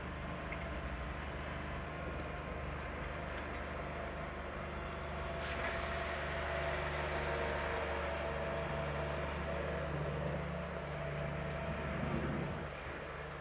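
City street ambience with a steady low hum, and a motor vehicle passing that grows louder from about halfway through, its engine note rising, then drops away near the end.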